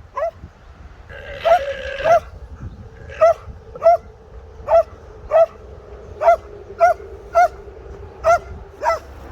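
Alpaca alarm call: a short, high-pitched call repeated about a dozen times, often in pairs, roughly every half second to second.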